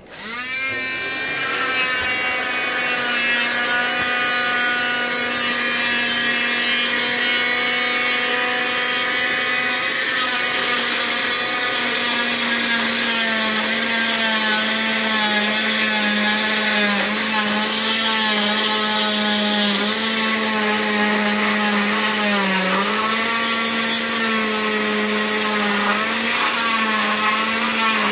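Oscillating cast saw and its hose-connected de Soutter Medical dust-extraction vacuum switching on, spinning up to a steady whine within about a second. From about 12 seconds in, the pitch drops a little and wavers as the blade cuts through the cast.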